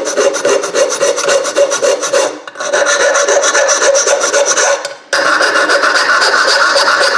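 Metal hand file scraping rapidly against the cast aluminum edges of a cut-out in a small engine block, cleaning up thin leftover slivers in the corners. It breaks off briefly twice, about two and a half and five seconds in.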